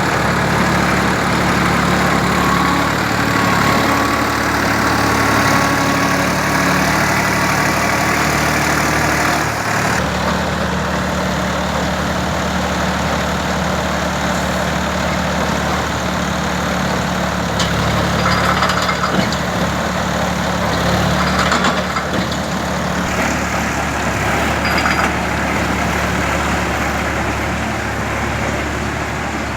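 Tractor engine running steadily, the power source for a self-loading concrete mixer. Its sound changes abruptly about ten seconds in, then runs on evenly.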